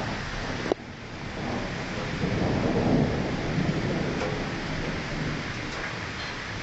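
Thunder rumbling over steady rain during a strong thunderstorm. The roll builds from about a second and a half in, is loudest around three seconds, and fades away. A single sharp click sounds just under a second in.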